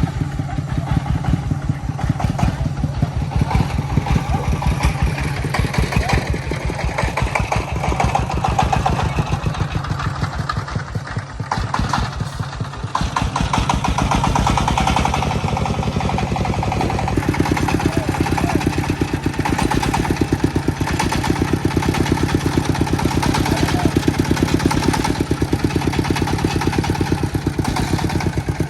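Công nông farm vehicle's single-cylinder diesel engine running with a steady, rapid chugging beat. The engine eases off briefly about eleven seconds in, then runs on evenly.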